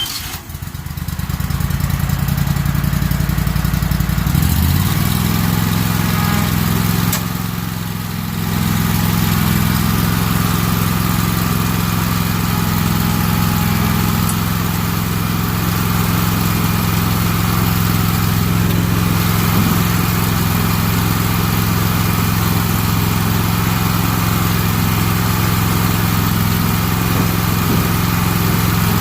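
Walker C19 mower's 29 hp Kohler engine starting up and running, its pitch shifting about four seconds in and then holding steady.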